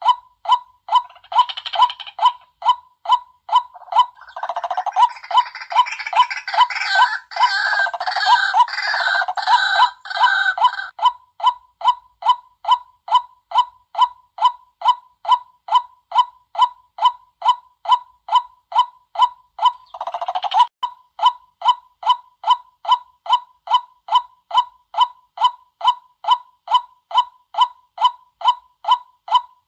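White-breasted waterhen lure calls: a monotonous croaking note repeated about twice a second in a steady rhythm. A louder burst of chattering cackles rises over it from about four to eleven seconds in, and again briefly near the start and about twenty seconds in.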